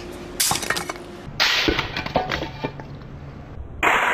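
Brick crashing down on a plastic toy horn, cracking and shattering the plastic with pieces clattering. Three loud crashes: about half a second in, a second later, and near the end.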